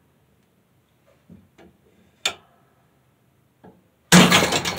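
A few light clicks, then about four seconds in a sudden loud clatter as the arm of a homemade vertical centrifugal casting machine is released and spins up. It runs shaky and off balance because no mold is loaded.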